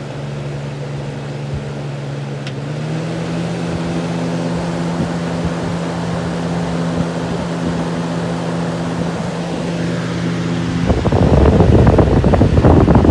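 Lasko Ultra Deluxe box fan, with a full-size Marco motor, running on high: a steady motor hum with rushing air, the hum rising in pitch about three seconds in as the motor comes up to speed. Near the end the airflow buffets the microphone, a loud rumbling rush that drowns out the hum.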